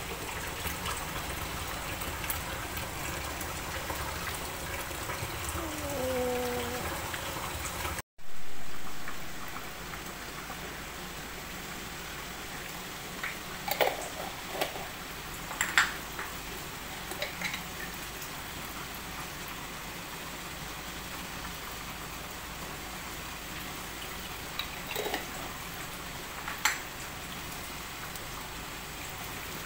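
Fish in yellow turmeric broth simmering in a wok: a steady bubbling hiss. It cuts off abruptly about a third of the way in and resumes, and a few sharp clicks come later on.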